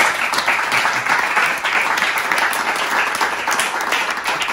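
A small audience applauding: many hands clapping steadily, with no break.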